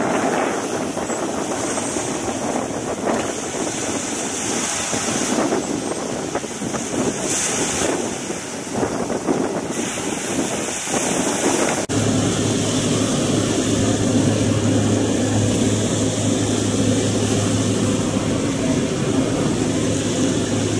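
Wind buffeting the microphone over sea noise while a glass-bottom catamaran motors past. About twelve seconds in, the sound switches abruptly to a steady low mechanical hum.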